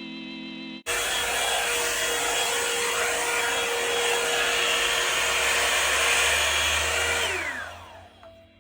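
Revlon One-Step hair dryer brush running with a steady rushing blow and a whine, then switched off about seven seconds in, its pitch falling as the motor winds down.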